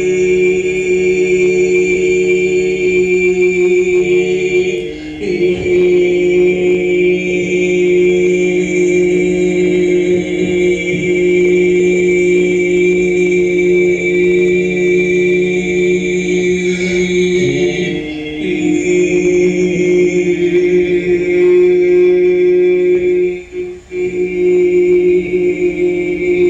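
Voices chanting long, held droning notes in a sound-poetry piece, relayed over a Skype call. The drone breaks off briefly about five seconds in, again after about seventeen seconds, and once more near the end.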